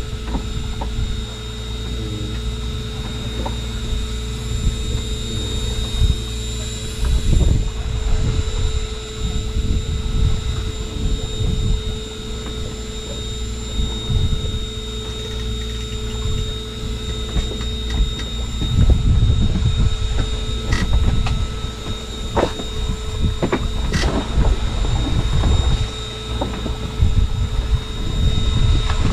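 A fishing boat's engine running with a steady hum, over a low rumble, with scattered knocks and clicks that come more often in the second half.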